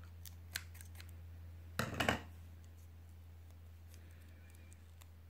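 Hands handling a small DC motor wrapped in electrical tape: a few light clicks, then one brief scratchy rustle about two seconds in, over a low steady hum.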